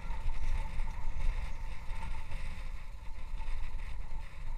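Wind buffeting the microphone, a fluctuating low rumble, with a faint steady high whine running underneath.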